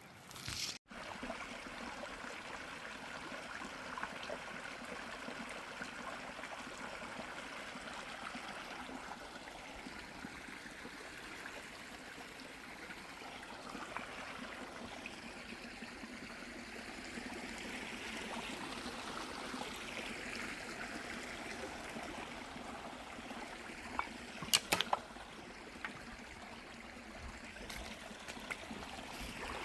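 Water of a small spring-fed stream running steadily with an even rushing trickle. A few sharp clicks or knocks come about 24 seconds in.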